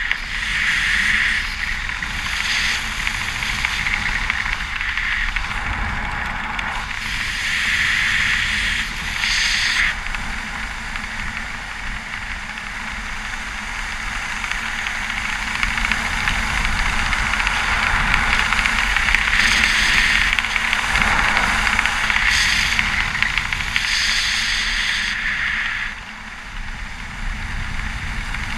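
Wind rushing over an action camera's microphone under an open parachute canopy: a steady noise that swells and eases in gusts every few seconds, then drops off sharply near the end.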